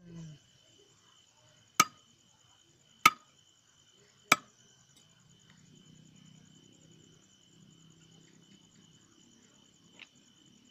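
Three sharp chops of a blade cutting through cassava stems onto a wooden block, about a second and a quarter apart, with a fainter knock near the end. A steady high insect trill runs underneath.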